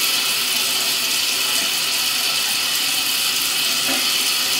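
Water running steadily from a sink tap.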